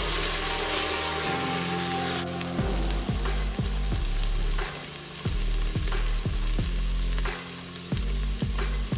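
Onions, green peppers and garlic sizzling as they fry in an Instant Pot's stainless steel inner pot on the sauté setting, stirred with a wooden spoon. A low, regular thudding beat runs underneath from about two and a half seconds in.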